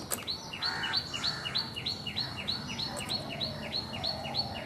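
A bird calling a quick, high two-note phrase over and over, about three times a second.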